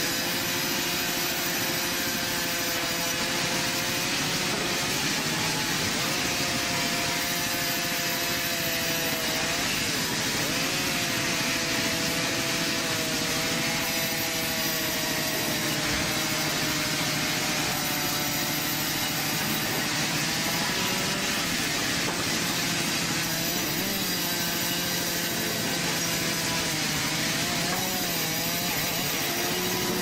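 Sawmill band saw running and cutting lengthwise through a log: a steady rasping of the blade through the wood, with a whine that shifts in pitch every few seconds.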